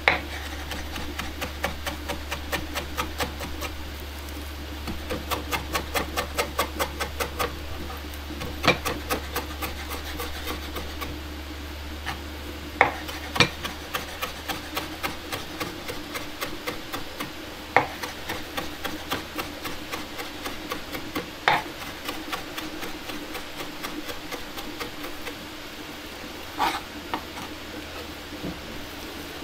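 Chef's knife chopping fresh parsley on a wooden cutting board: quick, even taps of the blade on the board, several a second, with an occasional louder knock.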